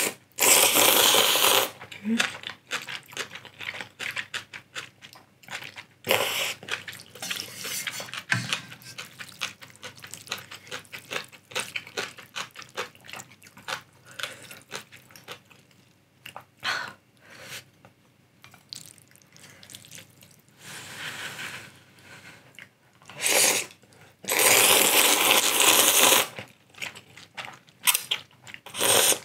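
A person slurping instant ramyeon noodles loudly, in long noisy pulls: one right at the start, another about six seconds in, and a long one near the end. Between the slurps come chewing and small mouth clicks.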